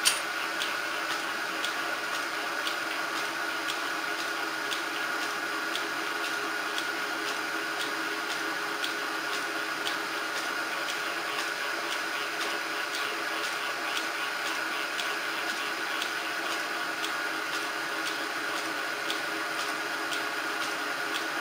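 Metalworking machine running steadily while cutting into a piece of steel tube, with a constant high whine and fine ticking that never let up.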